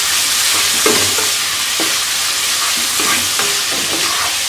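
Sliced onions and whole spices sizzling in hot oil in a karai (wok) as they fry until soft, stirred with a wooden spatula that scrapes across the pan several times over a steady hiss.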